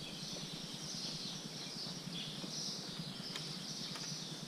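Outdoor ambience: a steady high-pitched chirring chorus that swells and fades every second or so, over a low even hum.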